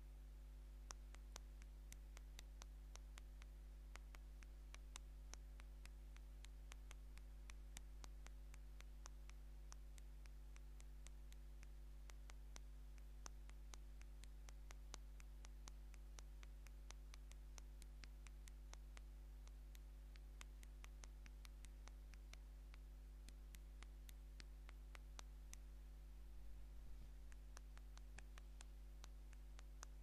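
Fingernails tapping on the touch screen of an old LG phone while texting: faint, quick, irregular light clicks, several a second, over a steady low hum.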